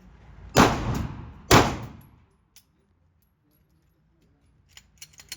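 Two gunshots about a second apart, each with a ringing tail, followed by a few faint clicks near the end.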